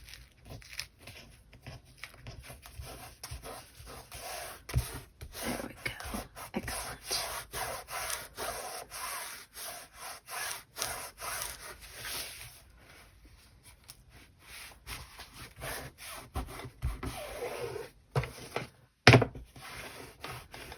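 Bone folder rubbing back and forth over freshly glued paper to press the pages flat: a series of dry scraping strokes, with one sharp knock near the end.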